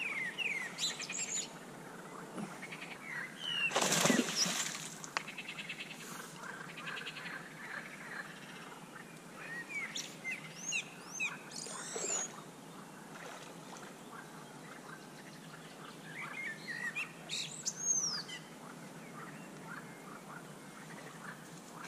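Small birds singing and chirping, short whistled and trilled phrases on and off throughout. About four seconds in comes a brief loud noise of about half a second, the loudest moment.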